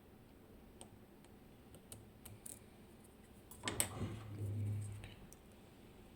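Faint scattered clicks and scrapes of a lock pick working the pins inside a Medeco M4 cylinder under clockwise tension, with a louder scraping, rubbing handling noise for about a second and a half near the middle.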